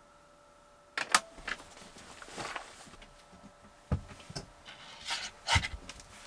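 Objects being handled: an irregular run of knocks, clicks and rubbing, the loudest clatter about a second in and again near the end, with a low thump about four seconds in, over a faint steady hum.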